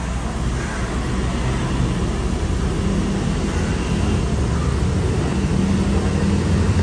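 Steady low mechanical rumble with a hiss above it, growing a little louder towards the end.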